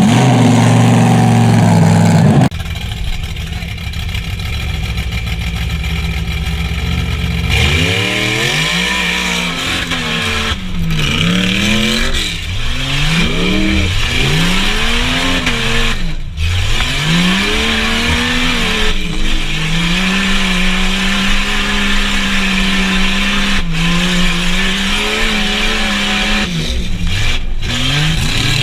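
Jeep Cherokee XJ's 4.0 straight-six engine, running low at first. From about eight seconds in it revs up and down again and again as the truck is driven hard over the course. Later it holds a fairly steady pitch for several seconds, then dips and rises again near the end.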